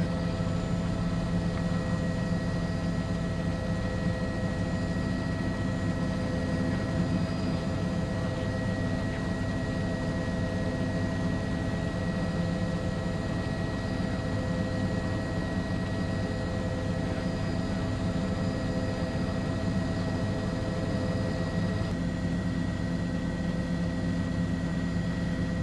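Steady drone of a helicopter's engine and rotor heard from on board, with a constant thin high whine over it.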